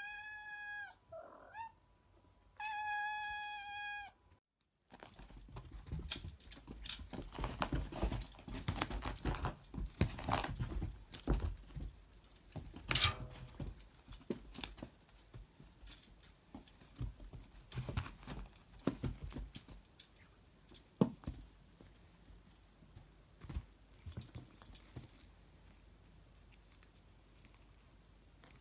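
Two long steady pitched tones at the start. Then a cat batting at a feather wand toy on carpet: rapid rattling, jingling and knocks with one loud knock about halfway through, growing sparser in the last third.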